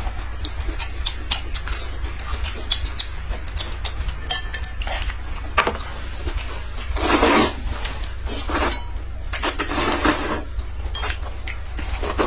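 Chopsticks clicking against ceramic and metal bowls, with noodles slurped loudly twice, about 7 and 10 seconds in.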